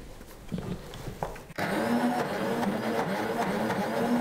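OmniBlend V high-power blender fitted with its lid, then switching on about a second and a half in and running steadily, grinding a thick, fairly dry lutenitsa paste worked down with the tamper. A few small clicks of the lid and jar come before it starts.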